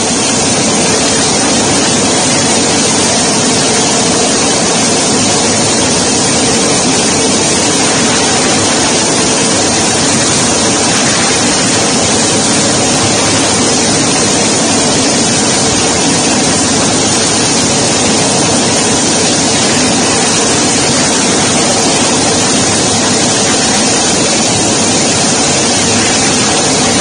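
Navy helicopter hovering low over the sea: a loud, steady roar of its turbines and rotor that does not let up.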